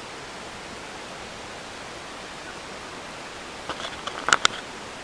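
Steady hiss of outdoor background noise, with a short run of sharp clicks and taps a little under four seconds in, the loudest about a second before the end.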